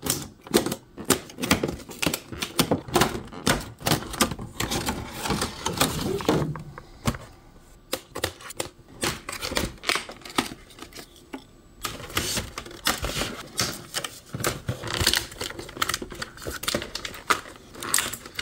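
Clear plastic and cardboard doll packaging being cut open with scissors and pulled apart by hand: a long run of irregular clicks, snips and crinkles.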